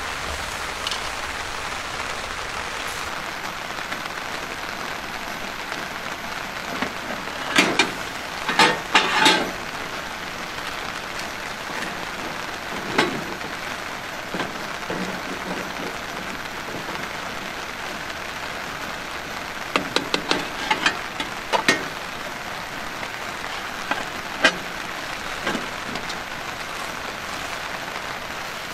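Steady rain falling, with scattered clicks and clattering knocks of cooking utensils, in a few clusters.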